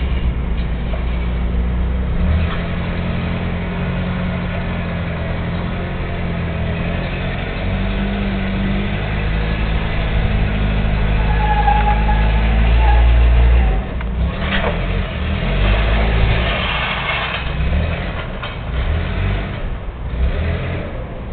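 Forklift engine running and revving under load, building to its loudest about two-thirds of the way through and then dropping off sharply, followed by scattered knocks and clanks.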